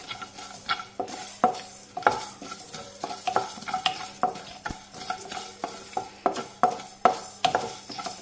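A spoon stirring and scraping whole spices (coriander seeds, cinnamon, cloves) around a hot kadai as they dry-roast. The strokes are irregular, about two a second, each with a short ring from the pan.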